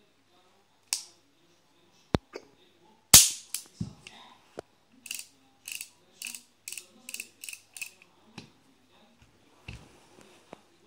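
Metallic clicks of an old Eibar-made Smith & Wesson-type .38 revolver's action being worked by hand: a few single sharp clicks, the loudest about three seconds in, then a quick, even run of about eight clicks like the cylinder being turned through its stops, and a dull thud near the end.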